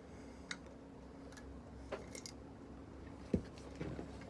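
Light clicks and taps of small metal parts being handled and fitted together during reassembly of a tin-plate toy locomotive, with one sharper knock about three and a half seconds in, over a steady low hum.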